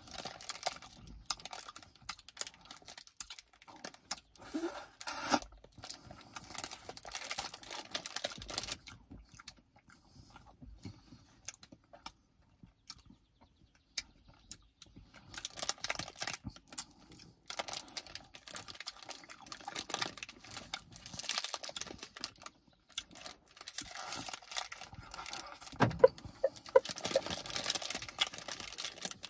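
Crinkling and rustling of the foil wrapper on an ice-cream cone as it is handled and peeled back, along with mouth sounds of licking and eating the ice cream. The crackling comes in stretches, with a few quieter seconds around the middle.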